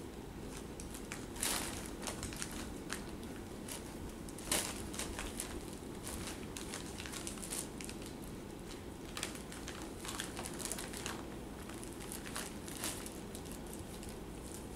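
Thin plastic packing material crinkling as kittens paw, roll and tussle on it: irregular short rustles, the loudest about one and a half and four and a half seconds in.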